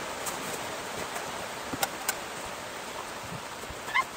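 Steady hiss of light rain falling, with scattered small clicks and a louder knock about four seconds in as camping gear is handled.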